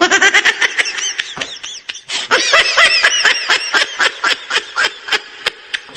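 A person laughing in a long run of quick, repeated bursts, several a second, with a short lull about two seconds in.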